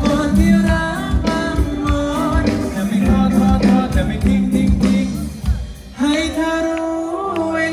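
A male singer sings a Thai song live into a microphone, backed by a band with electric guitars and a steady beat. The music dips briefly about five and a half seconds in, then a long held note comes in.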